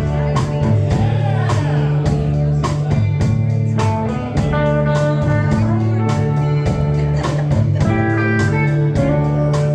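Live band playing an instrumental intro: guitar and bass chords over a steady drum beat, before the singing begins.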